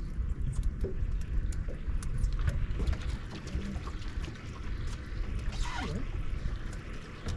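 Water splashing and sloshing, with scattered small clicks and knocks and one louder splash about six seconds in.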